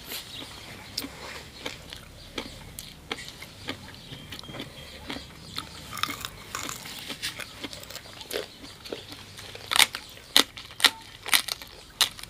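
Close-up eating sounds: wet chewing and lip smacks with scattered short clicks, then several louder crunchy bites near the end as a raw cabbage leaf is bitten into.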